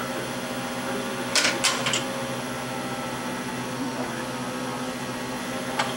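Lionel 164 log loader running, its electric motor driving the chain conveyor with a steady hum. Three sharp clacks come about a second and a half in, and one more near the end.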